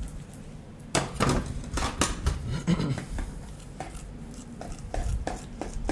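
Knife cutting the belly off a whole tuna on a cutting board: irregular knocks and scrapes of the blade and fish against the board, starting about a second in.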